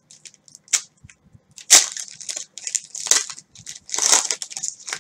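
Plastic wrapper of a trading-card cello pack crinkling and tearing as it is cut and pulled open, a run of crackles with two louder bursts about two seconds in and about four seconds in.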